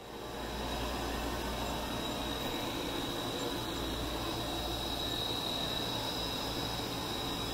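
Steady running noise of G-scale model trains on the layout, an even hiss with a low hum, and a thin high whine that grows a little stronger midway.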